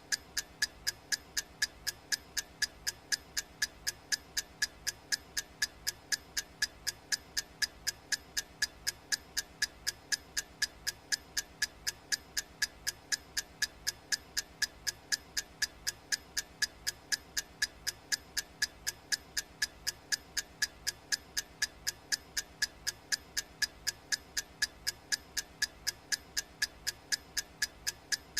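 Clock ticking sound effect: steady, even ticks at about two a second.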